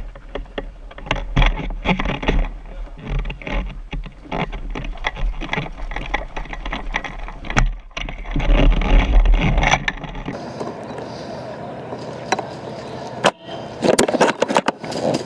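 Handling noise from a camera mounted on an airsoft sniper rifle's barrel as the rifle is carried: irregular knocks, rattles and bumps of gear, with deep wind rumble on the microphone. About ten seconds in this stops suddenly and gives way to a steadier hiss with a few sharp clicks.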